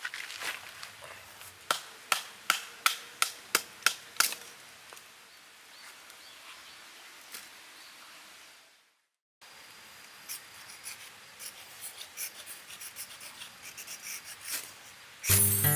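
About eight sharp taps at an even pace, roughly three a second, followed after a brief dropout by faint scattered clicks. Acoustic guitar music starts near the end.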